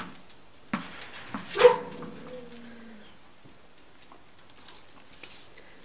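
Dog giving a sharp yelp about a second and a half in that trails off into a whine for about a second, followed by faint scuffs and clicks.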